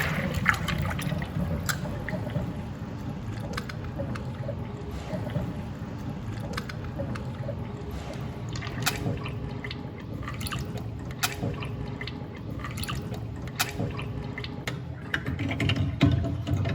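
Water swirling in a small whirlpool vortex, with scattered drips and light clicks over a steady low hum.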